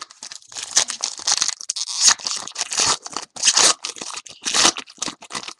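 Foil trading-card pack wrapper being torn open and crinkled by hand, a dense run of crackling and tearing.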